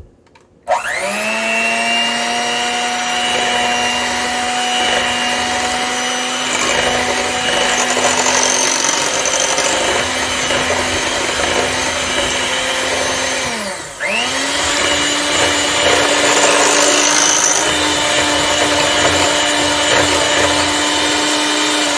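Electric hand mixer beating eggs, oil and sugar in a glass bowl: the motor spins up about a second in and runs at a steady whine, stops briefly about two-thirds through, then starts again at a higher pitch and runs on until it stops at the end.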